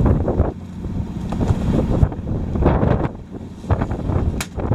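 Wind gusting across the microphone over the steady low hum of a fishing boat's engine, with a few light knocks and clicks near the end.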